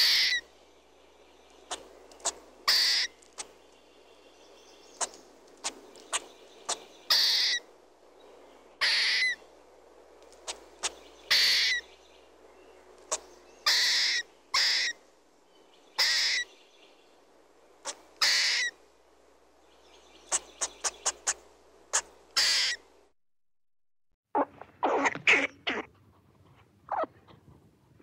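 Squirrel calls: short, sharp calls repeated about every two seconds, with quick clicks between them. After a brief silence a few seconds before the end, a quicker, denser run of chattering calls.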